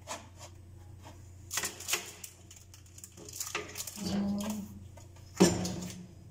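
A plastic back-support frame being handled and assembled: scattered clicks and knocks, with a sharp knock about five and a half seconds in as the loudest.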